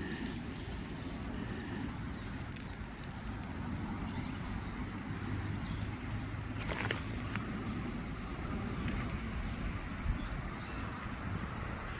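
Steady low outdoor rumble, like distant traffic or wind on the microphone, with a couple of sharp knocks and a few faint high chirps.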